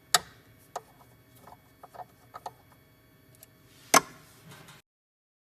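Small hand-handling clicks and taps on the cutter and probe of a 2M2 Tank II Pro CNC key cutting machine as they are fitted: a sharp click just after the start, another about four seconds in, and a scatter of softer clicks between. The sound cuts off suddenly near the end.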